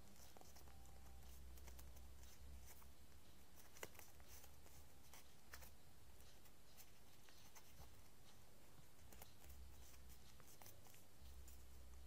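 Faint handling of origami paper as it is folded and shaped by hand: light rustles and small scattered ticks, one a little sharper about four seconds in, over a low hum.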